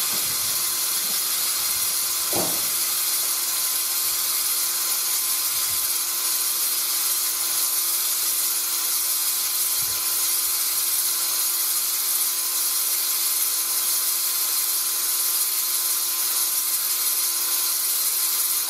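Electric drill running steadily at slow speed, spinning a spring-loaded stone cylinder hone inside a bore of a 308 V8 block. A steady motor whine sits under a loud hiss from the hone working the cylinder wall, and it cuts off sharply at the end.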